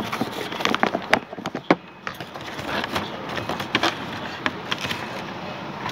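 A sheet of paper rustling and crackling as it is handled and folded, with a quick run of sharp crackles in the first two seconds and more around four seconds in.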